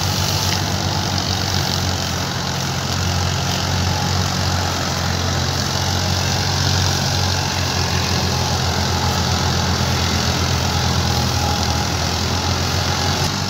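Diesel tractor engine running steadily as it hauls a grain trolley across soft, muddy harvested paddy ground. The engine note holds even throughout.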